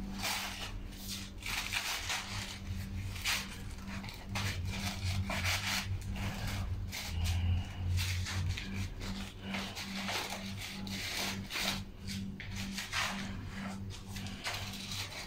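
Irregular rustling and rubbing of handmade craft-paper flowers and leaves being handled and pressed into place on a decorative stand, over a steady low hum.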